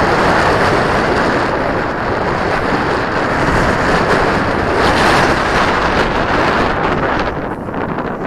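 Strong, gusty wind buffeting the microphone: a loud, rushing noise that surges and eases, dropping off a little near the end.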